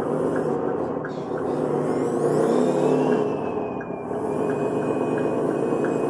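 Radio-controlled CAT 140H model grader driving, a steady mechanical whir from its drive, with a faint thin whine that rises about two seconds in and then holds.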